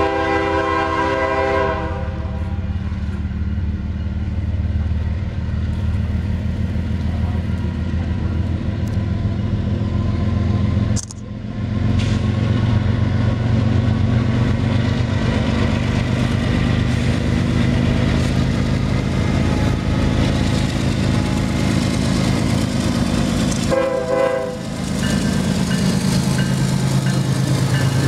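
Union Pacific diesel locomotive horn sounding a chord that ends about two seconds in, then the low, steady rumble of several diesel locomotives' engines passing close by. A second short horn blast comes near the end.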